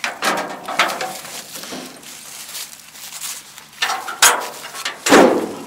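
Short metallic clinks and knocks with straw rustling as a gloved hand works at the side mechanism of a broken-down tractor-drawn round baler, with a louder thump near the end.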